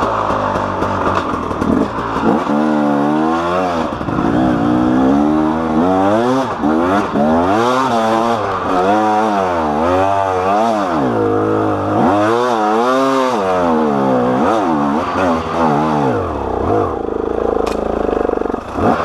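KTM EXC two-stroke dirt bike engine, ridden on a rough trail with the throttle opened and closed over and over, its pitch climbing and dropping about once a second. Near the end it settles into steadier, lower running.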